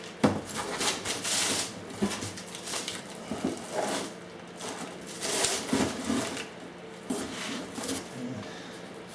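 Unpacking noise: a cardboard box and its packing being handled, with irregular rustling and a few short knocks.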